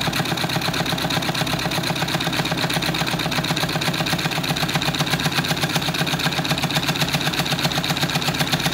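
Homemade tin-can Stirling engine running steadily at just under 500 RPM, belted to a small generator that adds little drag: a fast, even mechanical clatter of about eight beats a second.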